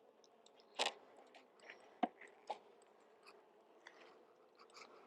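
Faint crunching and a few sharp clicks as wooden hive frames and a queen cage are worked into place in an open beehive; the loudest click comes about a second in.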